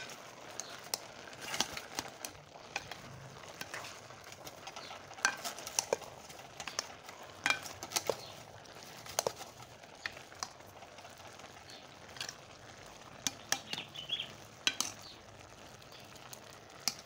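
Irregular clinks, knocks and scrapes of a utensil against a cooking pot, a dozen or more sharp strikes spread unevenly over a low steady background.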